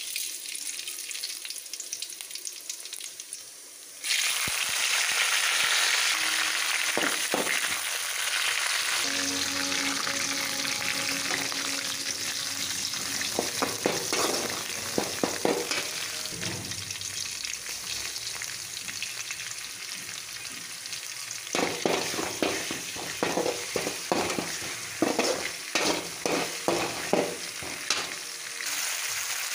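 Spices, green chillies and curry leaves sizzling in hot oil in a metal kadai; the sizzle gets much louder about four seconds in. A metal spoon stirs and scrapes against the pan in two spells of quick clicks and scrapes, midway and near the end.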